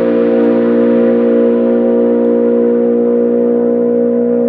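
Racing car engine held at high, steady revs flat out on the straight, one unchanging note with no gear change.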